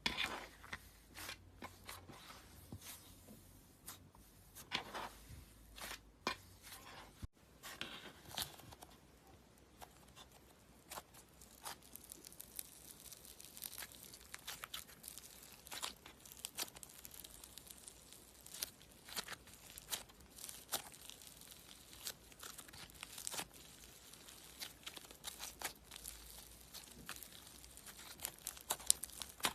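Slime being squeezed, stretched and pressed by hand, giving a long run of small crackling and popping clicks that grow denser partway through.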